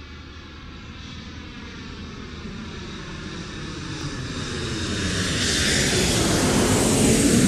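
An aircraft flying past, its engine noise growing steadily louder as it approaches.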